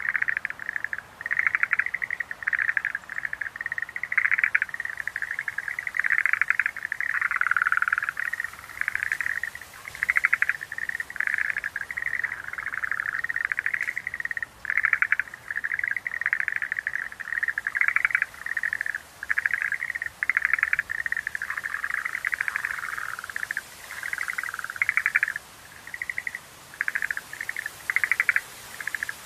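Schlegel's green tree frogs calling in chorus: rapid pulsed trills repeating one after another with short gaps, overlapping at times.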